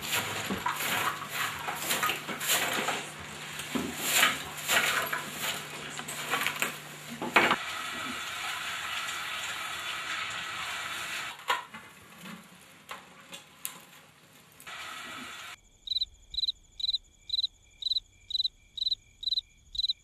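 Embers and ash being raked and scraped by hand on an open hearth, with clattering of coals, then a wood fire crackling with a steady hiss and occasional sharp pops. Near the end this gives way to a cricket chirping steadily, about two chirps a second.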